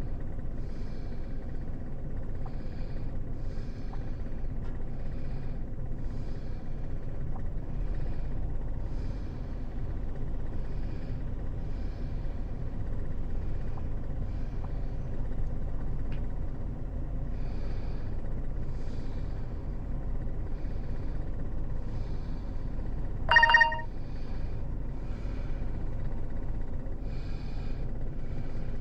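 Hurricane Idalia's wind blowing steadily as a low rumble, with a faint regular chirping higher up about once a second. A single short, loud, high beep comes about three-quarters of the way through.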